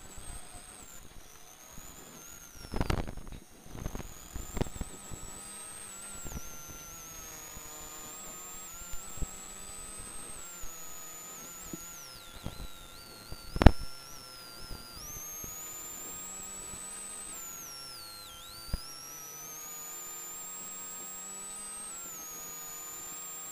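Rally car intercom feed full of electrical interference: a thin whine that keeps rising and falling in pitch over a steady hum, broken by crackles. One sharp, loud crack comes about 14 seconds in. The sound is the sign of a faulty intercom.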